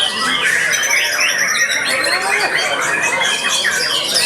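Several caged white-rumped shamas (murai batu) singing at once in a contest, a dense unbroken tangle of overlapping whistles, chirps and quick sweeping notes.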